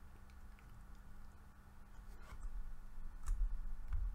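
Quiet room tone with a steady low hum, broken by a few faint computer-mouse clicks about two, three and four seconds in.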